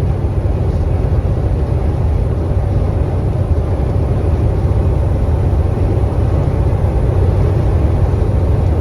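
Steady low drone inside the cab of a KAMAZ 4308 truck driving at road speed: its diesel engine and road noise, with strong crosswind pressing on the cab.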